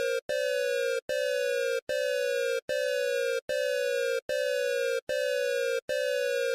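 Emergency Alert System alarm tone for Colombia: a harsh electronic beep repeated about every 0.8 seconds with short breaks between, each beep sliding slightly down in pitch.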